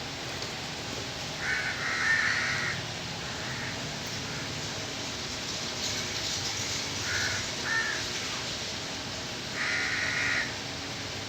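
Harsh, crow-like bird caws: a call or two about two seconds in, two short calls around the middle, and a longer call near the end, over a steady background hiss.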